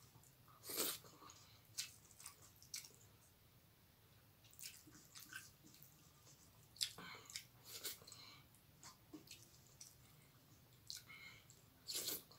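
Hand-eating sounds: rice and dal squished by fingers in a steel plate and chewed with wet mouth smacks, heard as faint, scattered wet clicks, the loudest about a second in, a cluster around the middle and another near the end.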